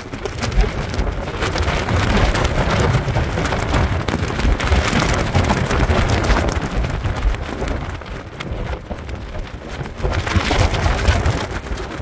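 Very high wind gusting, with a heavy rumble on the microphone and a dense crackling rush. It eases about eight seconds in, then builds again near the end.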